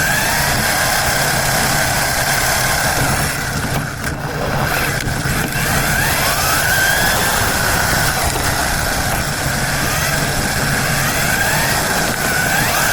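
Radio-controlled car's motor running with a steady whine whose pitch sweeps briefly upward several times, over a constant rushing noise.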